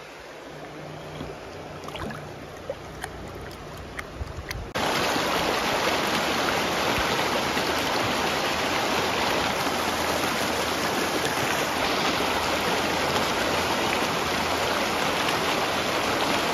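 Creek water rushing over rocks, a steady even rush. It is quieter for the first few seconds, with a few faint clicks, then steps up to a louder steady rush about five seconds in.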